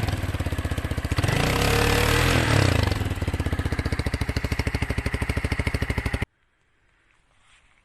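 Motron Revolver 125 cc motorcycle engine running with an even pulsing beat, revving briefly up and back down in the first few seconds, then running steadily until the sound cuts off abruptly about six seconds in.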